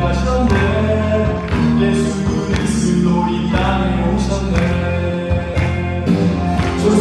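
A church worship team performing a song: voices singing over a band with a steady beat.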